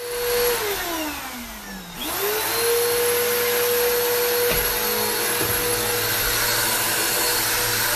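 Vacuum cleaner running with a steady whine. About half a second in, its motor winds down and the whine falls in pitch. Near two seconds it spins quickly back up and holds a steady whine again.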